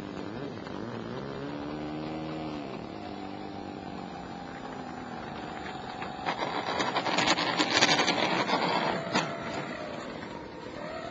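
Electric motor and propeller of a radio-controlled scale Fokker D.VIII model taxiing on grass, its whine rising and falling in pitch with the throttle. From about six to nine seconds in the sound turns much louder and rough, with crackling, as the model comes close, and a short rising whine follows near the end.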